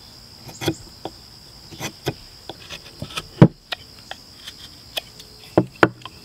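Knife blade whittling a wooden hammer handle: short, irregular scraping cuts into the wood, with a sharp knock about three and a half seconds in and two more knocks near the end. A steady high-pitched whine runs underneath.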